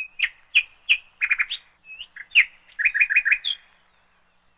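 A bird calling: a string of short, high chirps, some in quick runs of three or four, that stops a little before four seconds in.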